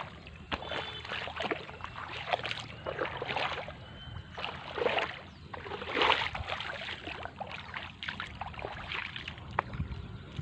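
Wading steps through shallow ditch water: irregular splashes and sloshing, roughly one a second.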